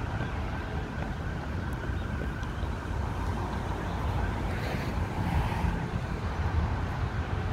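Street traffic: a steady low rumble of passing cars.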